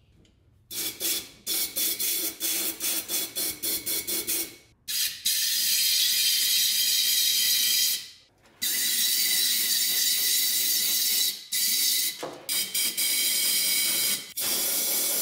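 Compressed-air blow gun with a long nozzle hissing into the spark plug holes. It goes in a run of quick short bursts, then long steady blasts, then more short bursts near the end. The air spreads Marvel Mystery Oil over the cylinder walls so the engine can be turned over without scarring them.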